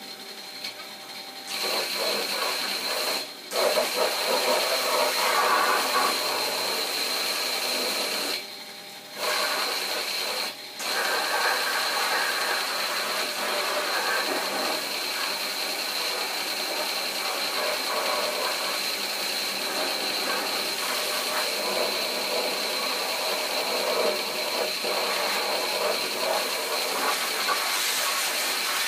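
High-pressure car-wash jet spraying water onto a car's wheel arch and underbody, a steady hiss with the pump's constant high whine underneath. The spray cuts off briefly about three times in the first ten seconds, then runs without a break.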